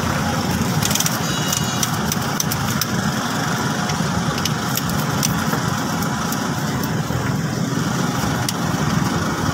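A steady, engine-like mechanical drone runs in the background, with faint light metal clicks as a piston ring compressor is tightened around a piston.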